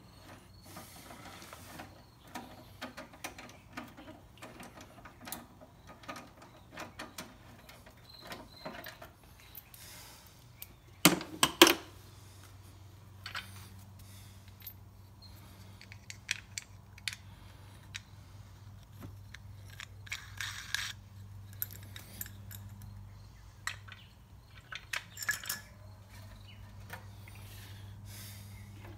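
Hand tools and small metal parts clinking and knocking while a motorcycle's front fender and its brake-line brackets are unbolted: scattered light clicks, a louder clatter about 11 seconds in, and a steady low hum from about 12 seconds on.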